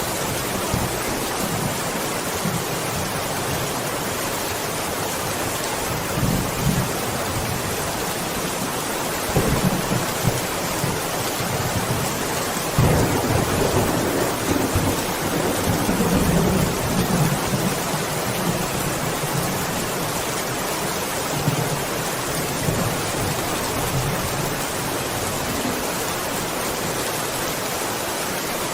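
Steady rain hiss with thunder rumbling low several times, the longest and loudest roll about midway through.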